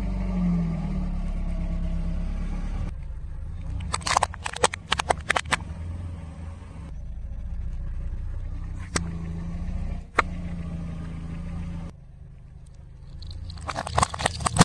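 A car engine runs with a low, steady rumble as the tyre rolls slowly, while the tyre crushes small hard plastic objects. There is a quick burst of cracking and crunching about four seconds in, two single sharp cracks a little over a second apart in the middle, and another burst of crunching near the end.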